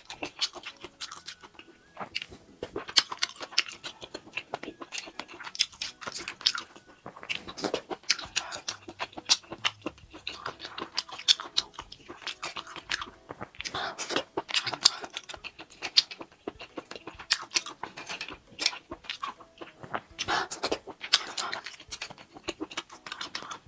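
A person chewing small abalone cooked in red chili oil: wet smacking and clicking mouth sounds in irregular runs.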